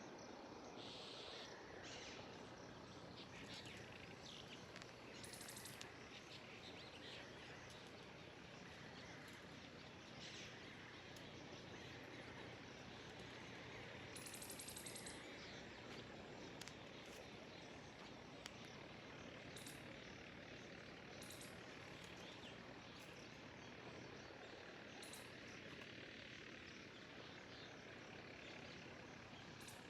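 Faint outdoor nature ambience: a steady low hiss with scattered short, high-pitched chirps, one longer chirp about halfway through.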